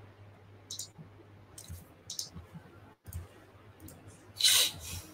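Scattered, faint computer mouse clicks, with a louder brief rustling hiss about four and a half seconds in, over a faint steady low hum.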